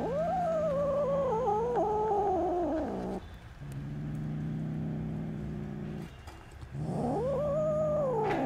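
Angry tabby kitten yowling: a long wavering wail of about three seconds that sags in pitch toward its end, then a lower steady rumble, then a second shorter yowl near the end.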